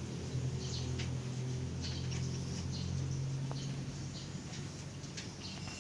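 Twelve-day-old kittens making short, faint high squeaks and small clicks while they squirm together, over a low steady hum that fades about three seconds in.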